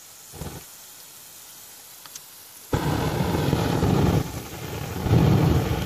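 A ground firework fountain catches about three seconds in and burns with a loud rushing noise that swells and dips as it throws out sparks and flame.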